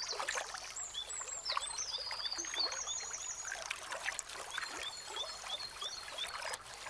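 Water splashing and lapping as European otters swim at the surface, with a steady run of small splashes and a series of high, repeated chirping calls above them.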